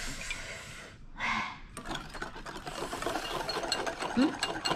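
Hand whisk beating instant coffee, sugar and hot water for dalgona coffee in a cup: a rapid, continuous rasping scrape of the whisk against the cup, with a brief louder rush of noise about a second in.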